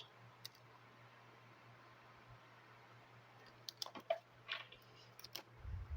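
Soft clicks and light taps of tarot cards being handled on a table, a few in the second half, over a faint low hum.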